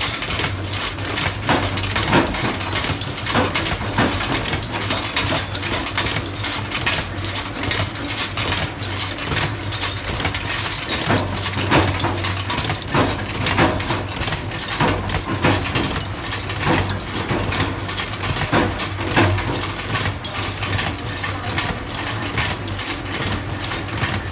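Press machinery running with a steady low hum under rapid, irregular metallic clicking and clattering of small pressed metal bulb-holder shells dropping down a chute into a steel bin.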